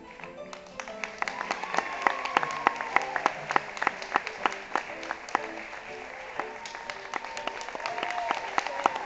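Audience clapping steadily as the cast bows, with instrumental music playing underneath.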